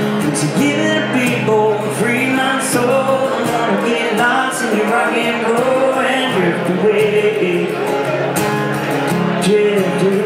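A man singing into a microphone while strumming an acoustic guitar, a live solo song.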